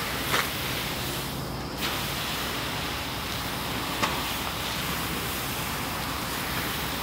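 Grass seed hissing and rustling as a gloved hand sweeps and stirs through a full poly spreader hopper, with a couple of brief sharper scuffs.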